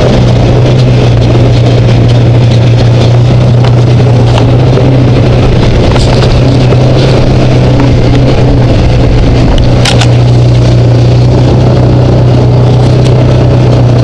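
Can-Am Commander side-by-side driving a dirt trail, its engine a loud, steady low drone, with tyre and chassis rattle over the bumpy ground. A single sharp click about ten seconds in.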